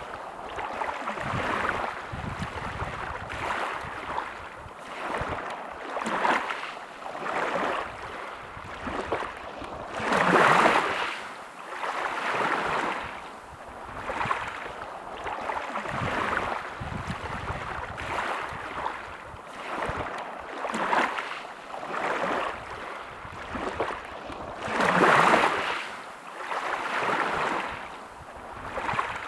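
Sea waves washing in and out on a beach, the surf rising and falling every couple of seconds, with two larger waves breaking about ten seconds in and again near the end.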